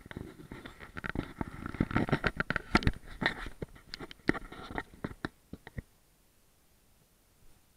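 A kitten pouncing on and tussling with strings pressed against a GoPro camera: a rapid, irregular run of scratchy taps, knocks and rustling as its paws, claws and body hit the camera housing and the strings. The noise dies away about six seconds in.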